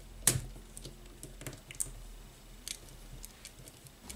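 Small clicks and light ticks of a hex driver and plastic parts as a step screw is turned into the top mount of a shock absorber on a plastic RC model chassis, with one sharper click about a quarter second in.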